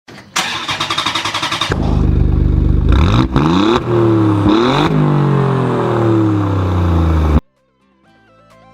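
50cc pocket bike engine running with a fast pulsing beat, then revved up and down several times before the sound cuts off abruptly. Quiet music fades in near the end.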